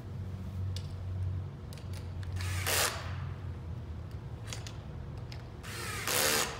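Cordless drill run in two short bursts, a brief one about two and a half seconds in and a longer one near the end, tightening the nuts on the bolts that fasten the pitching-target motor and its safety bar to the frame. A steady low hum runs underneath.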